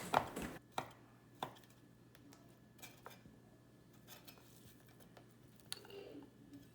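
Knife slicing through pre-cooked chicken sausage, giving a few faint, irregularly spaced taps of the blade on the cutting board.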